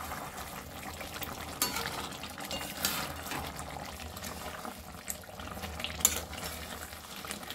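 A steel spatula stirring chicken and potatoes through a thick, hot curry gravy in a metal kadai. There is a wet stirring noise throughout, with a few sharp clinks of the spatula against the pan.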